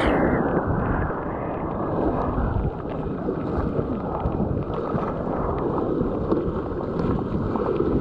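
Whitewater rapids rushing steadily, with wind rumbling on the microphone.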